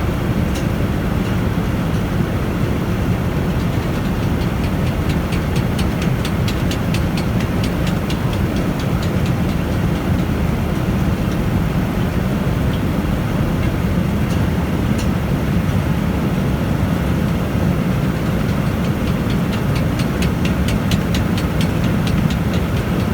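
Sugar beet piler running: a steady, heavy machinery noise from its conveyors. About five seconds in, and again near the end, comes a stretch of rapid clattering.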